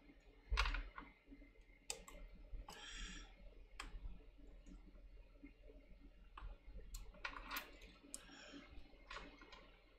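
Faint, irregular clicks and taps of small tools and phone parts being handled at a repair bench, spaced a second or more apart.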